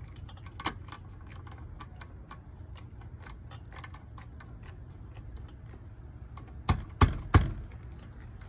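Light clicking and tapping from hand work on an outdoor receptacle box and its mounting screws, over a steady low hum, then three sharp knocks in quick succession near the end.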